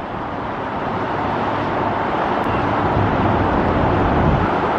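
Steady road-traffic noise, a continuous rush of passing vehicles that slowly grows louder.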